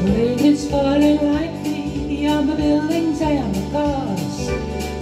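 A woman singing a slow song, accompanied on an electronic keyboard with a steady beat; her sung phrase ends shortly before the end.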